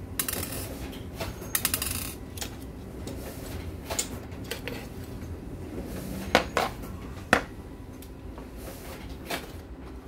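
Small metal clicks and clinks as screws and a sheet-metal hard-drive bracket are handled while the 3.5-inch SATA drive is taken out of the bracket: a quick rattle of clicks near the start and two sharp taps past the middle.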